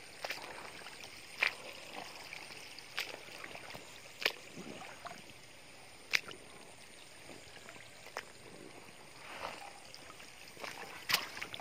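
Footsteps through wet, waterlogged grass, with a sharp tick or small splash every second or two over a faint steady hiss.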